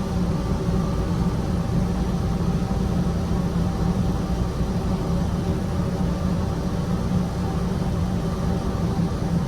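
Steady electric hum of a 260 series narrow-gauge train's onboard equipment while it stands in the station, a low drone with a few faint steady tones above it and no wheel or rail noise.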